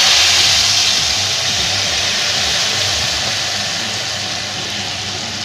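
Hot tempering oil with chillies, curry leaves, mustard seeds and cumin sizzling as it is poured onto drumstick (sahjan) pickle mix. It is a loud, steady sizzle that slowly fades.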